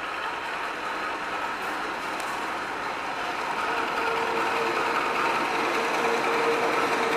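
KAI CC 201 diesel-electric locomotive moving slowly while shunting, its engine running steadily and growing gradually louder as it nears. A steady hum comes in about three and a half seconds in.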